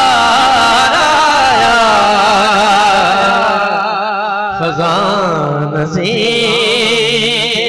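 A man singing a naat in a melismatic style, with long wavering held notes over a steady low drone.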